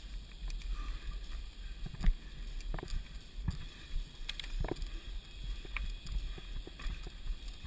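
Mountain bike rolling fast over a dirt forest trail, heard from an on-board camera: a steady low rumble of wind and tyre noise with irregular knocks and rattles from the bike over bumps, the sharpest about two seconds in.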